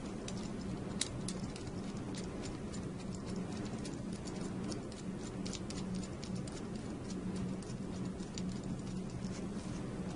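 Light, irregular metallic clicking and ticking as the key lock's large locking nut is tightened against the back of the mounting bracket, with one sharper click about a second in, over a steady low hum.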